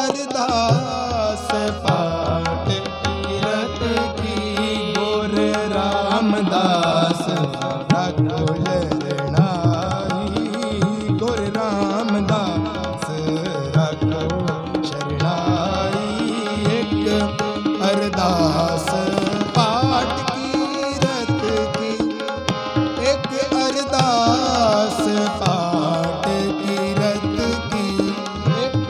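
Harmonium and tabla playing a Sikh shabad kirtan: held reedy harmonium chords and melody over a steady stream of tabla strokes.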